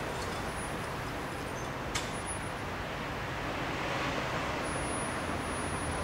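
Steady outdoor background noise, a rumble and hiss with no single clear source, with one sharp click about two seconds in.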